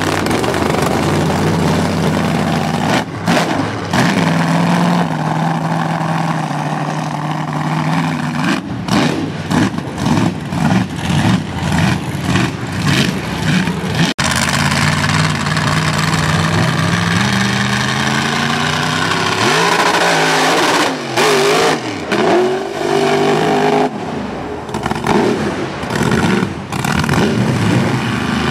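A 1600-horsepower mega truck's engine running and revving hard in repeated bursts, its pitch climbing and dropping as the throttle is blipped and held.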